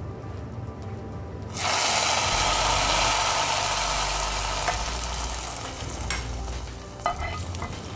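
Hot coconut-oil tempering of mustard seeds, dried red chillies and curry leaves poured into a coconut curry. A loud hissing sizzle starts suddenly about a second and a half in and slowly dies away over several seconds, with a few light clicks near the end.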